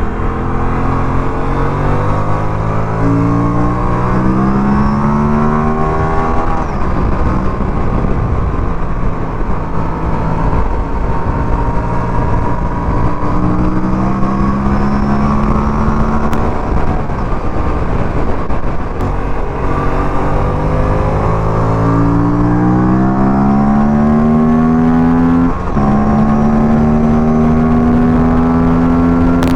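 Aprilia RS 457's 457 cc parallel-twin engine pulling hard on a track: the pitch climbs in long pulls, then falls away about six seconds in as the bike slows, and drops sharply at an upshift about 25 seconds in before climbing again.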